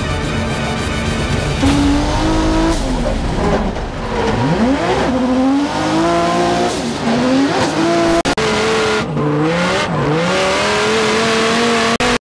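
Drift car's Toyota JZ inline-six revving hard, its pitch repeatedly dipping sharply and climbing again, over a hiss of tyre noise. Music fades under it in the first second or so.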